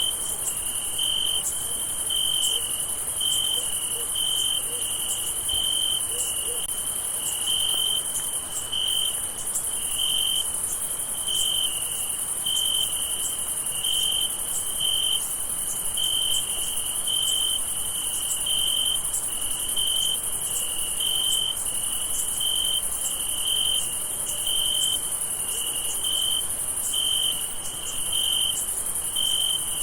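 Crickets at night: a steady high-pitched chorus, with a lower chirp repeating about one and a half times a second.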